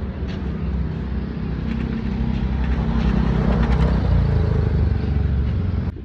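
A motor vehicle engine running close by, with a low steady drone that grows louder toward the middle and eases slightly near the end.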